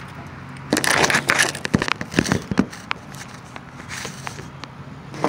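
Phone being handled and repositioned close to its microphone: rustling, scraping and knocking for about two seconds, then a fainter bit and another brief burst near the end.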